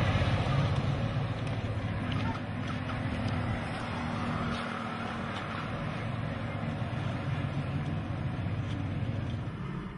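Outdoor street noise: a steady low rumble of vehicle engines mixed with a constant wash of noise, easing slightly after the first couple of seconds.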